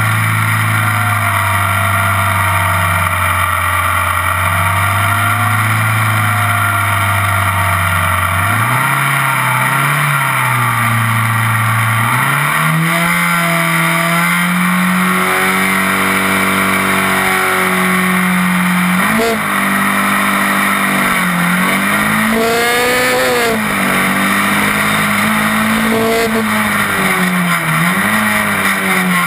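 Single-seater race car's engine idling steadily on the starting grid, then blipped and held at higher revs for the start. Over the last ten seconds it pulls away, its pitch climbing and dropping with the gear changes.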